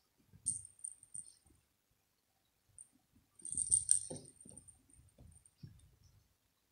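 Small bell inside a toy ball jingling in short bursts as a cat bats at it, once about half a second in and again, louder, around four seconds, with soft thumps and rustling against a plush cat bed.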